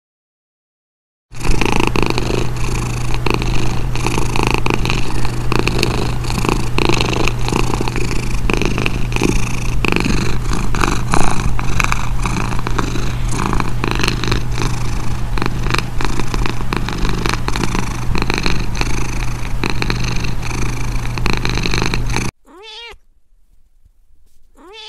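Domestic cat purring loudly and steadily, very close to the microphone, cutting off suddenly about three-quarters of the way through. Two short meows follow near the end.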